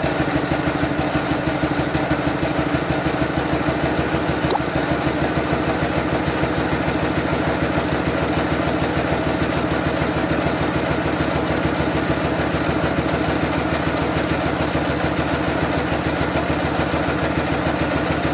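Ural motorcycle boxer-twin engine idling steadily on one cylinder while the carburettor mixture screw is adjusted to find the highest idle speed.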